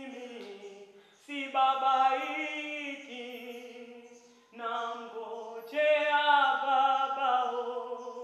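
A woman singing unaccompanied, in phrases of long held notes that waver in pitch.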